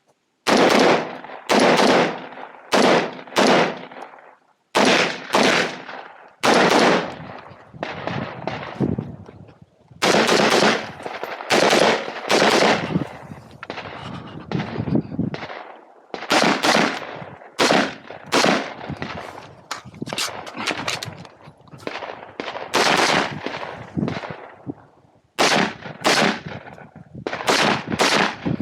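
Rifle shots fired in quick succession during a timed competition string, dozens of them, often a half-second to a second apart with a few short pauses, each crack trailing off in an echo.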